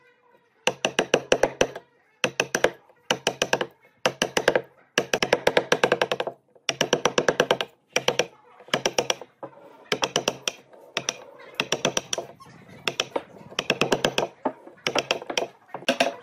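Wooden mallet striking a chisel to chop a square mortise in a wooden board: runs of rapid blows, each run about a second long with short pauses between.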